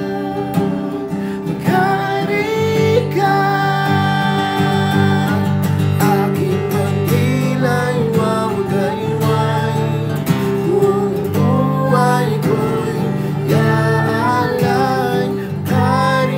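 Tagalog worship song: strummed acoustic guitar with a sung vocal melody.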